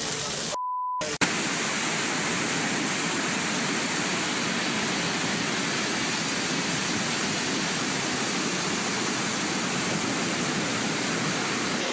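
Heavy rain pouring down as a steady hiss. About half a second in it drops out for half a second of silence holding a short steady beep, then comes back with a click.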